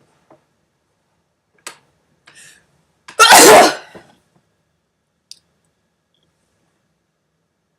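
A woman's single loud sneeze about three seconds in, lasting under a second, brought on by a nasal irritant. A couple of faint short sounds come before it.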